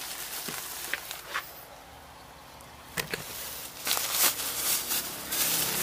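Thin plastic shopping bag crinkling and rustling as it is handled and untied, in irregular crinkles with a quieter lull about two seconds in and busier rustling in the last few seconds.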